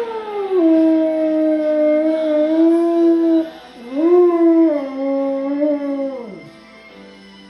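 Golden retriever singing along to Christian praise and worship music in two long, drawn-out notes: the first slides down and then holds, and the second rises about four seconds in, then glides down and stops near the end. The worship music plays more quietly underneath.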